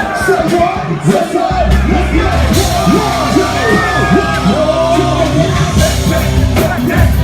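Live rap concert music through a loud PA, heavy bass with voices yelling and singing over it. The bass cuts out briefly about a second in, then returns.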